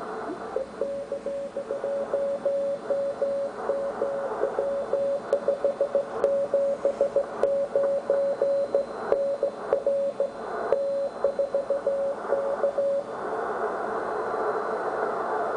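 Morse code (CW) signal heard through a Ten-Tec T1380 QRP transceiver on the 80 m band: a single tone of about 600 Hz keyed in dots and dashes over the receiver's band hiss. The keying stops about 13 seconds in, leaving only the hiss.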